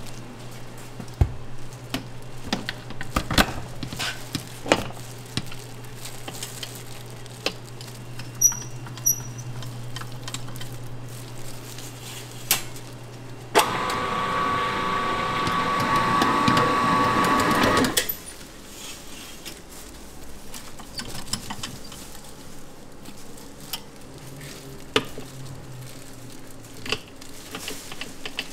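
Commercial stand mixer with a dough hook running for about four seconds in the middle, a loud whir with a steady whine, kneading croquette dough, then cutting off suddenly. Before and after it, a low steady hum and scattered knocks and scrapes of a gloved hand working the dough against the steel bowl.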